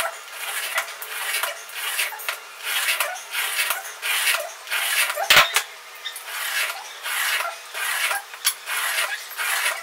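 Utility knife blade scraping along a metal ruler as it scores a 0.45 mm aluminium sheet, repeated strokes about twice a second, with a sharp knock about five seconds in. Repeated passes deepen the score line until the border can be snapped off.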